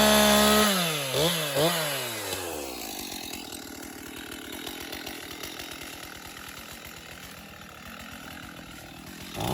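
Chainsaw running at full throttle, then let off so its pitch drops away in a couple of dips about a second in. It idles quietly through the middle and revs back up at the very end.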